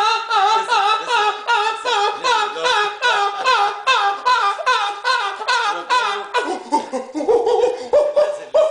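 A man's voice letting out a rapid string of loud, high-pitched wailing yells, about three a second, while another man laughs. Near the end the yells turn into longer, lower drawn-out notes.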